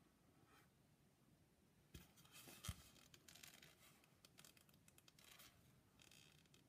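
Faint scratching and rustling of hand-sewing: a needle and thread drawn through cotton lining fabric and the knitted edge of a hat, with fingers handling the fabric. Two soft knocks come about two seconds in, then the rasping goes on in short strokes.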